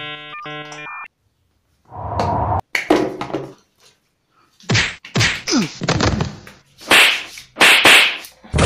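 A short electronic beeping jingle, then a quick run of whooshing and whacking comedy sound effects, ending in a loud burst of noise that cuts off sharply.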